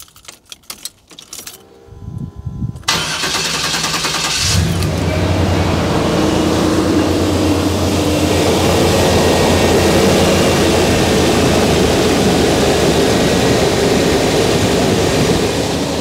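1989 Chevy K1500 pickup's engine being started: a few clicks and a brief crank, then it catches about three seconds in, runs up briefly and settles into a steady idle. This is the first start after the power steering gearbox replacement.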